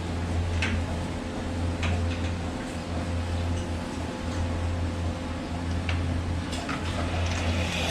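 Milking-system vacuum pump running with a steady low hum that dips briefly every second or two, with a few light clicks and knocks of work in the milking parlour.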